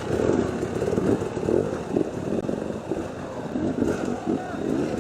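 Two-stroke enduro motorcycle engine revving hard, its pitch rising and falling again and again as the throttle is worked.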